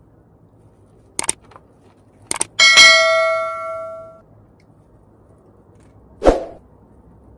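Two short knocks, then a hard object struck once with a loud ringing clang that dies away over about a second and a half. A single dull thump near the end.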